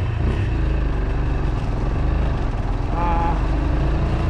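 Motorcycle engine running as the bike rides along a paved road, with wind rumbling on the microphone. A brief voice-like sound comes in about three seconds in.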